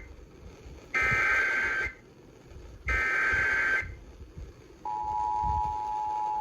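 Emergency Alert System SAME header data bursts, two short screechy digital bursts about two seconds apart, encoding a flash flood warning; about five seconds in, the steady EAS attention tone begins.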